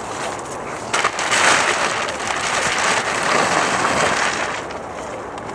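Himalayan balsam leaves and stems being pulled up and broken by hand: a rustling crunch that starts suddenly about a second in and lasts about three seconds.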